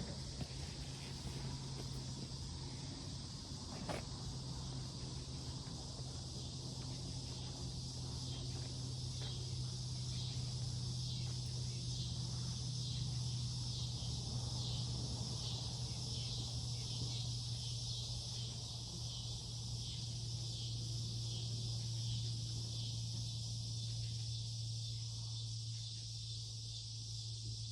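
Insects chirping in a steady outdoor chorus that pulses about twice a second, over a steady low hum. A single sharp click comes about four seconds in.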